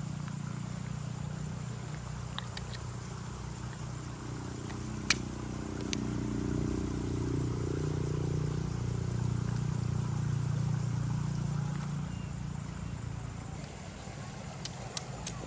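A motor vehicle engine running steadily, growing louder through the middle and easing off near the end, with a sharp click about five seconds in.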